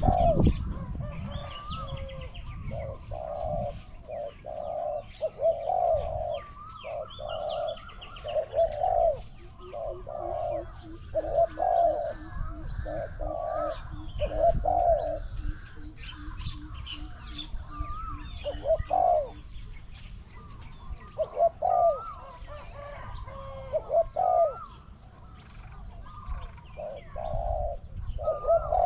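Spotted doves cooing in a long run of repeated low coos, with small birds chirping higher above them. A fast, even string of soft low pulses runs through the middle, and there is a brief low rumble at the very start.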